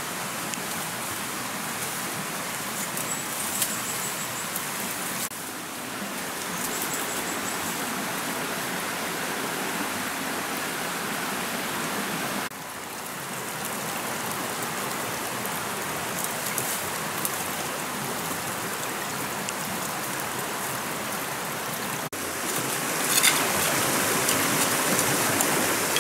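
Shallow stream running steadily, a continuous rushing of water that grows louder in the last few seconds, with a few sharp clicks.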